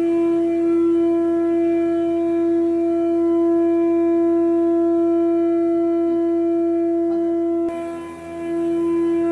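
A loud, steady held tone with a clear pitch and a stack of overtones, like a sustained horn or wind-instrument note. It breaks off abruptly near the end, dips, and then comes back.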